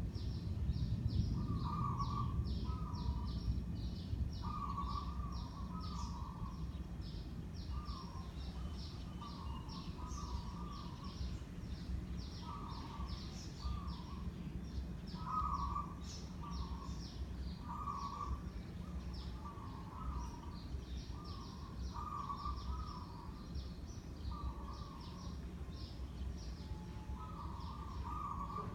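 A 56-inch Sunwindy ceiling fan running steadily, its motor giving a low, even hum under the rush of moving air. Over it, birds call again and again in short clusters, and a fast, regular high chirping goes on throughout.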